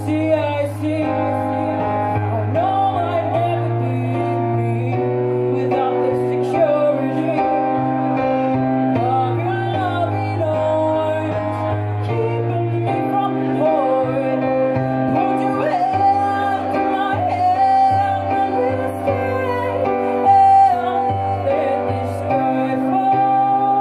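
A woman singing a slow song live with electric keyboard accompaniment, the keyboard holding chords that change every second or two under her voice.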